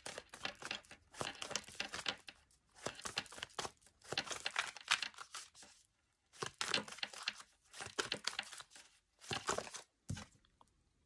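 A deck of oracle cards being shuffled by hand in short crackling bursts with brief pauses between them, then a single card laid down on a wooden table near the end.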